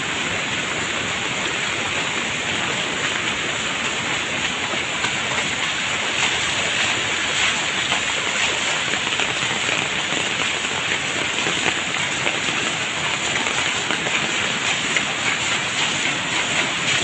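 Muddy floodwater rushing across a road: a steady, even rush of water with no let-up.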